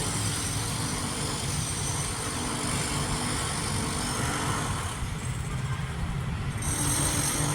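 Concrete-cutting power tool running steadily, with a high-pitched whine over a low rumble; the whine grows louder near the end.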